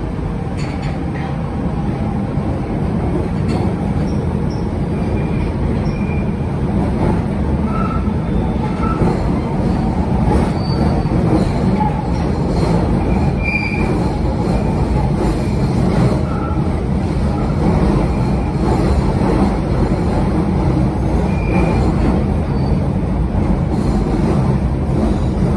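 London Underground 1972 Stock Bakerloo line train running: a loud, steady rumble of wheels on the rails, with short high wheel squeals now and then.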